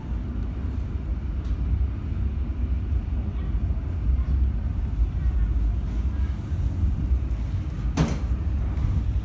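Steady low rumble of a commuter train running, heard from inside the carriage, with one sharp knock near the end.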